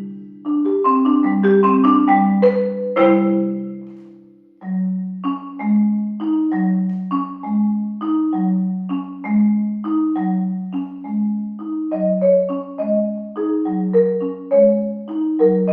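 Music played on tuned mallet percussion, struck notes ringing and decaying. A phrase dies away about four seconds in, then a steady, evenly paced pattern resumes, with low notes alternating under higher ones.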